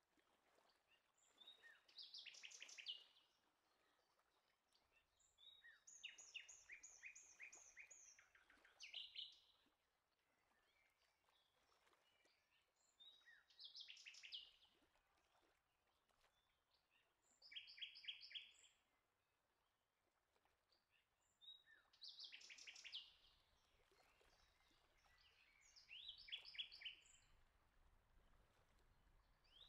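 Faint birdsong: short phrases of quick repeated high chirps, coming about every four seconds.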